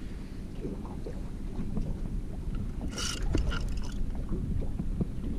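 Steady low wind rumble and water noise around a small fishing boat, with a short hiss about three seconds in.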